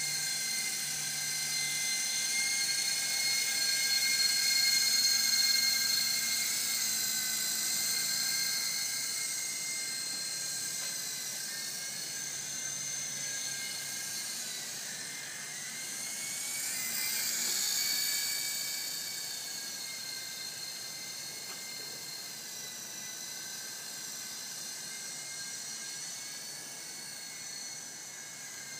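Electric motors and rotors of an S032G 3.5-channel toy R/C helicopter whining steadily in flight. The high-pitched whine swells about five seconds in and again around seventeen seconds, where its pitch briefly bends, then fades as the helicopter moves away.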